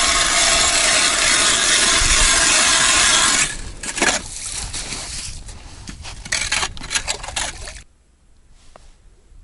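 Hand ice auger cutting a hole through the ice: a steady grinding rasp for about three and a half seconds, then scattered scrapes and knocks as the auger is lifted out of the hole. It goes much quieter near the end.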